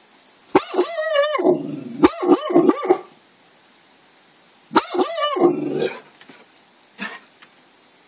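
A dog barking in three bouts: a drawn-out bark about half a second in, a quick run of shorter barks around two seconds in, and another drawn-out bark about five seconds in, with a faint yip near the end.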